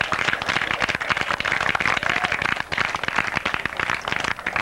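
A small crowd clapping and applauding, many irregular overlapping hand claps.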